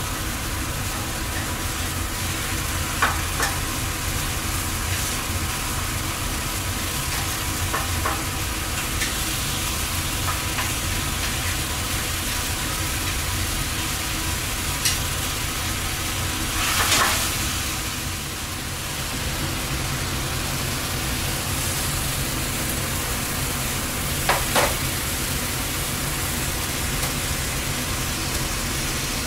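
Lamb frying in a pan, a steady sizzle over the constant low hum of the ship's galley. A few sharp metal clinks and clatters of utensils and pans are heard during it.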